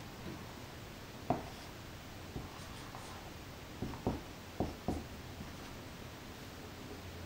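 Dry-erase marker writing on a whiteboard: short strokes of the tip, one about a second in and a quick run of three or four near the five-second mark.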